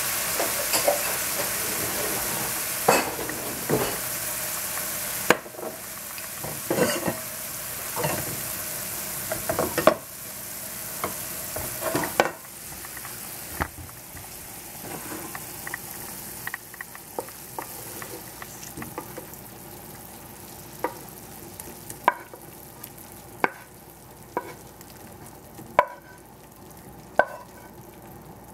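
Brussels sprouts sizzling in a frying pan, stirred with a wooden spatula that scrapes and knocks against the pan. The sizzle dies down after about five seconds. After that come single sharp knocks of the wooden spatula on the pan and ceramic bowl as the sprouts are scooped out.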